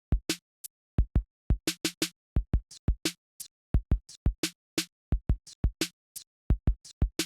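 Dry drum-machine beat on its own: deep kick drums alternating with sharp, crisp high hits in a steady rhythm, with short silences between the hits and no other instruments.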